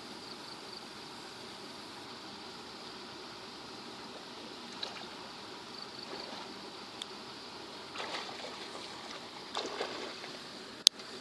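Water splashing and sloshing a few times, stronger twice in the second half, over a steady outdoor hiss with a faint insect-like buzz. There is one sharp click near the end.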